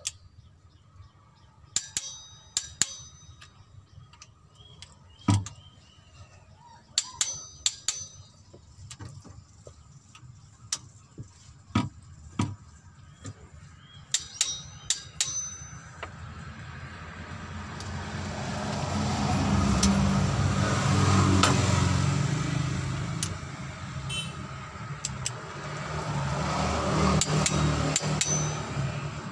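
Sharp metallic clicks and clinks of a torque wrench and socket on cylinder head bolts, scattered through the first half. In the second half a passing road vehicle swells to a loud peak and fades, then rises again near the end.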